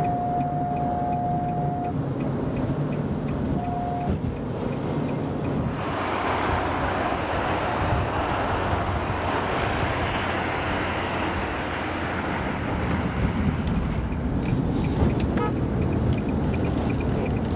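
Road and traffic noise heard from inside a moving car on a highway crowded with lorries. A vehicle horn sounds at the start, once for about two seconds and then once briefly. From about 6 to 12 seconds a louder rush of noise comes as the car passes close alongside a truck.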